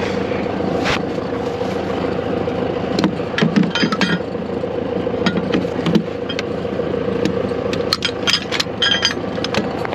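Tractor engine idling steadily, with two bursts of sharp metallic clinks and rattles, about three seconds in and again near the end, as the tow line for a stuck cattle trailer is hooked up.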